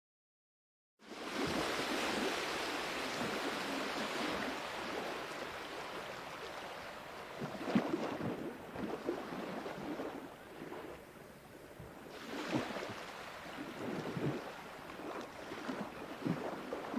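Sea waves washing onto a shore in a continuous rush that swells and ebbs, with stronger surges breaking about six, eleven and thirteen seconds in. It starts abruptly about a second in after a moment of silence.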